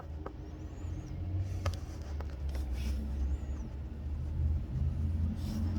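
Semi truck's diesel engine as the truck pulls out: a low, steady rumble that grows slightly louder. A few faint clicks and faint high chirps are also heard.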